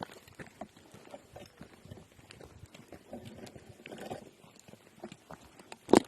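Footsteps and irregular taps on a stony hill path, with one sharp knock near the end.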